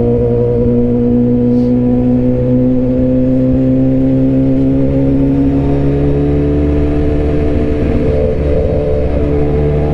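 BMW S1000RR inline-four engine running at steady, moderate revs while riding, its pitch climbing slowly as the bike gently gains speed.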